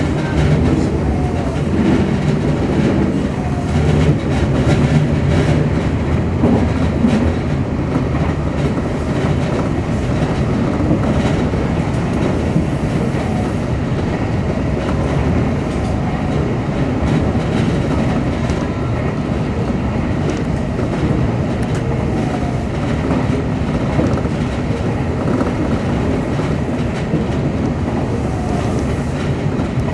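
Semboku Rapid Railway 7020-series electric train running at speed, heard from inside the leading car: a steady rolling rumble of wheels on rail with light clicks from rail joints.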